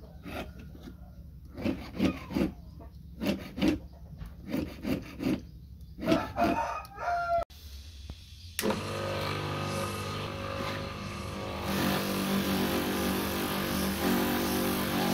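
Hand file rasping across a metal ring in quick strokes, in short runs of two or three. After a cut, an electric bench polishing motor runs steadily, spinning a polishing wheel.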